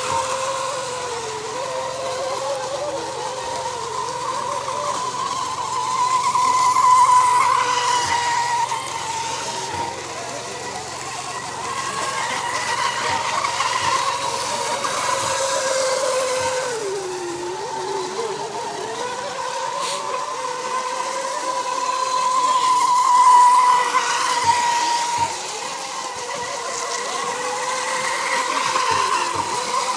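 Several radio-controlled Mini Mono racing model boats running flat out, their motors whining steadily at a high pitch over the hiss of their hulls skimming the water. The pitch wavers and dips briefly about two-thirds of the way through.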